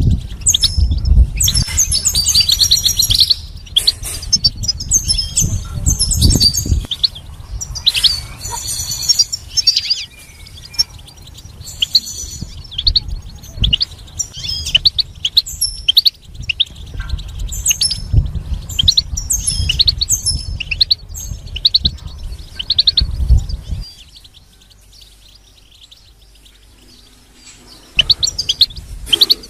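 European goldfinch singing: fast runs of high chirps and twitters, with a lull of a few seconds near the end before it starts again.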